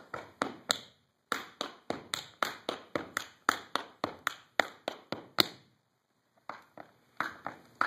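Tap shoes on a wooden floor: a run of sharp, crisp taps, about five a second, with two brief pauses, as a 5-count riff combination is danced.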